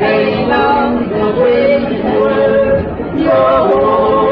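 Swiss-style yodeling: a voice singing held notes that jump quickly between low and high pitches.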